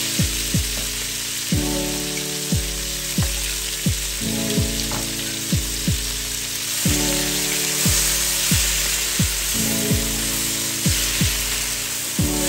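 Chopped tomatoes and onions sizzling in hot oil in a stainless steel wok: a steady frying hiss. Background music with a steady beat and falling bass thumps plays over it.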